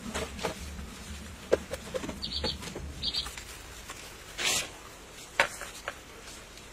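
Scattered light knocks and taps of bamboo poles being handled and set against a wooden frame, with two short bird chirps about two and three seconds in.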